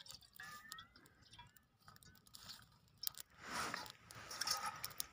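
Small fire of dry twigs and straw crackling, with scattered faint snaps and pops.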